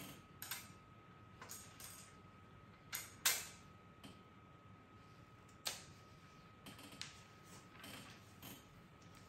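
Wooden coloured pencils clicking against each other and the tabletop as one is put down and another is picked out of a row, a few separate clicks with the loudest about three seconds in. A faint steady high tone runs underneath.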